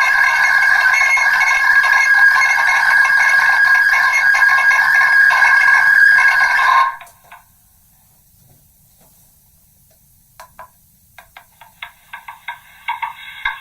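Megaphone playing back a recording of a recording many generations deep, the spoken phrase worn away into a thin, ringing drone with steady tones. It cuts off abruptly about seven seconds in; after a few seconds of faint hiss, choppy stuttering pulses begin and grow denser and louder near the end.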